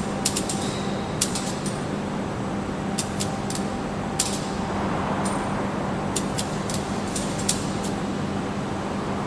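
Factory machinery running with a steady hum, overlaid by irregular sharp metallic clicks and clinks.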